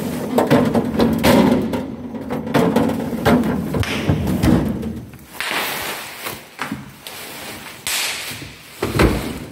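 Irregular knocks, clunks and thuds of refrigerator shelves and bins being handled and set in place, with a couple of brief sliding scrapes about halfway through and near the end.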